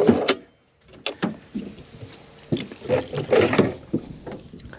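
Irregular knocks and clatter from a fishing boat's storage compartment being opened and rummaged through, with hard items bumping against the lid and sides. The loudest clatters come about a second in and again around three seconds in.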